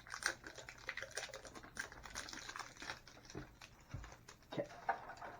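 Hands working open plastic-and-cardboard toy packaging: a run of irregular small clicks, taps and crinkles, a little louder near the end.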